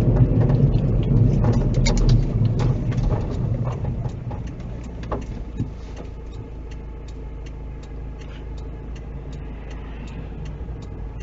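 Car interior: road and engine noise fading as the car slows to a stop, then the engine idling with a regular ticking, about three ticks a second, from the turn-signal indicator.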